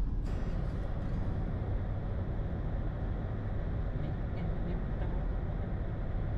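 Steady low road-and-engine rumble inside the cabin of a 2002 Dodge Grand Caravan minivan cruising at highway speed.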